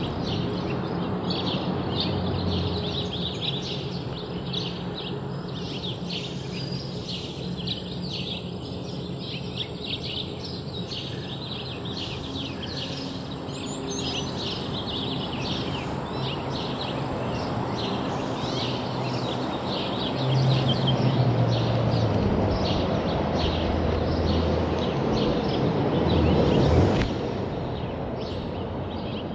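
A dense chorus of small birds chirping continuously over a steady background noise. A low hum grows louder from about twenty seconds in and cuts off sharply near the end.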